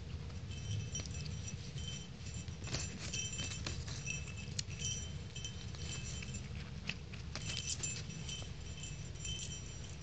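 Small bell on a cat wand toy jingling in short, irregular bursts as a kitten bats and bites at the toy, with soft taps and rustles among the jingles.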